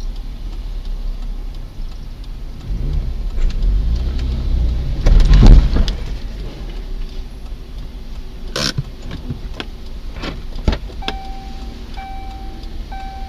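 Car dash-cam audio: a steady low engine and road rumble, swelling to a loud thump about five seconds in. A few sharp knocks follow, and near the end an electronic beep repeats about once a second.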